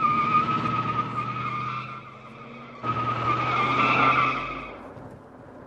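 Car tyres squealing in two long screeches. The first is already under way and eases off about two seconds in. The second starts sharply about three seconds in and fades out near the end as the car drives off.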